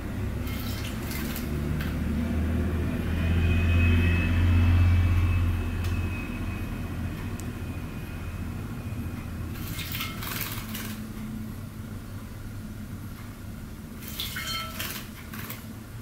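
Canary splashing in a shallow ceramic dish of water in three short bursts: just after the start, about ten seconds in, and near the end. Under it runs a steady low rumble that swells around four to five seconds.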